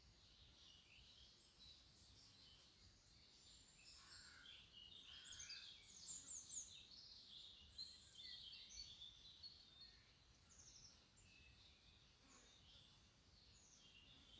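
Faint bird chirps: many short, high calls of varying pitch, busiest from about four to nine seconds in.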